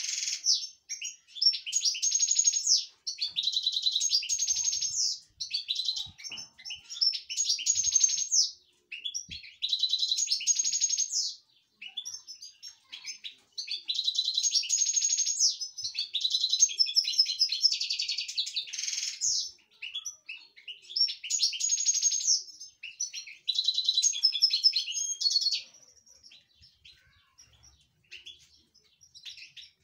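European goldfinch singing in excited bursts of fast, twittering song, each a second or two long with short breaks between, dropping to a few faint chirps for the last few seconds.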